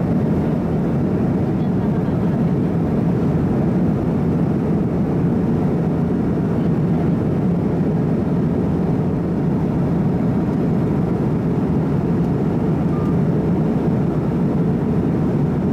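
Steady cabin roar inside an MD-88 airliner on approach: airflow and the rear-mounted Pratt & Whitney JT8D turbofan engines, a deep, even noise that stays level throughout.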